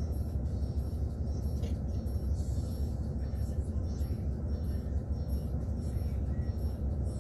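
Intercity coach's diesel engine idling, a steady low rumble heard from inside the passenger cabin while the bus stands still.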